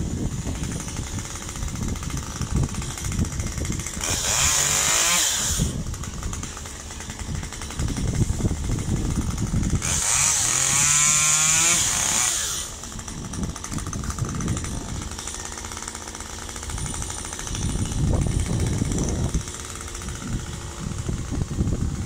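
Chainsaw running at idle with a rapid chatter, revved up to full throttle twice to cut branches: a short burst about four seconds in and a longer one of about two and a half seconds near the middle.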